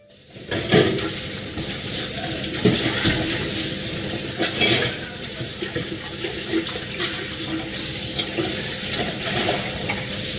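Tap water running into a stainless-steel sink as steel pots are rinsed, with occasional clanks of the pots against the sink.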